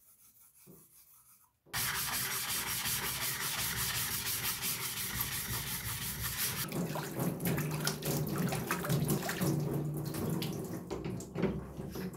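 A water stone being flattened: a coarse flattening stone is ground back and forth across the pencil-marked face of a wet whetstone, giving a steady gritty scraping that starts about two seconds in. About seven seconds in it turns lower and more uneven, with separate strokes.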